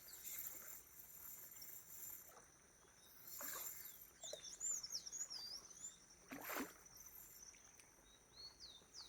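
Small birds chirping repeatedly in quick, high-pitched calls over a faint steady high-pitched hum, with two brief noisy sounds about three and a half and six and a half seconds in.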